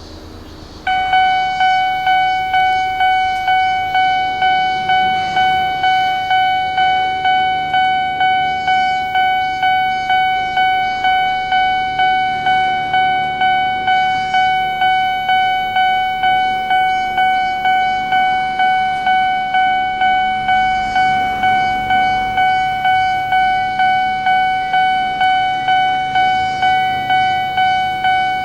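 Japanese railway level-crossing alarm ringing: an electronic bell tone that starts about a second in and repeats steadily, about one and a half strikes a second.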